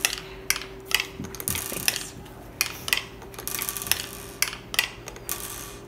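Marbles rolling and clattering down the wooden ramps of a Kiwi Crate marble timer: an irregular string of clicks and short rattles as they drop from ledge to ledge.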